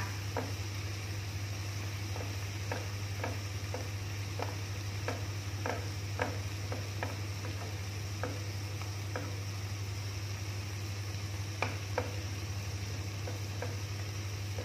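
Noodles and vegetables sizzling as they are stir-fried in a nonstick frying pan, with irregular clicks and scrapes of a wooden spatula against the pan, about one or two a second. A steady low hum runs underneath.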